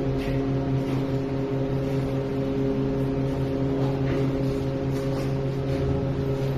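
A motor running steadily with an even, humming drone, with a few faint knocks.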